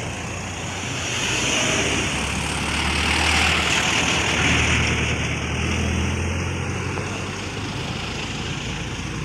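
Road traffic: a motor vehicle's engine hum and road noise swelling and then fading as it passes, over steady street noise.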